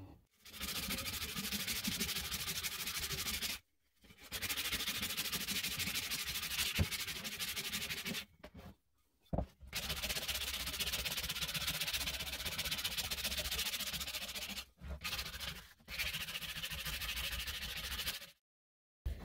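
Sandpaper rubbed back and forth by hand along an oak hatchet handle, in four long spells of steady strokes broken by short silent gaps.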